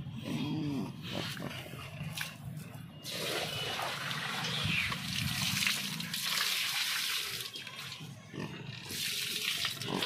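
Pigs grunting, then water poured from a plastic tub splashing across the concrete pen floor and into the trough, starting about three seconds in and easing off near the end.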